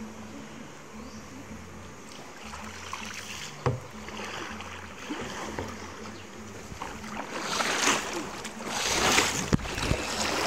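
Kayak paddling on a river: paddle strokes dip and splash, with a sharp knock of the paddle about four seconds in. From about seven seconds in, rushing, splashing water grows much louder as the kayak runs into a shallow rapid.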